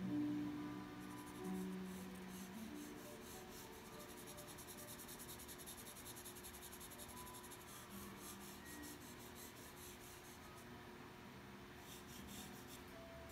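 Charcoal pencil scratching across toned drawing paper in rapid, repeated short strokes, with a pause shortly before the end. Faint background music holds a few notes in the first couple of seconds.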